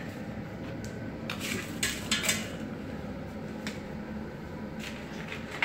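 A toddler clattering kitchen pots and utensils: irregular clinks and knocks, the sharpest a little after two seconds in and again at the very end.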